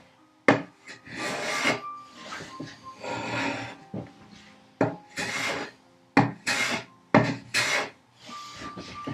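Hand plane shaving walnut: about eight short strokes, several starting with a sharp knock as the plane meets the wood. The plane is taking down the high corners of a dovetailed box carcass.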